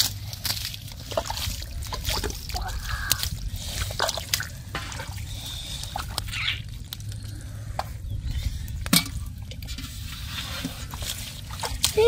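Hands digging and groping in wet mud and shallow water: squelching, small drips and trickles, with many short, sharp clicks scattered throughout.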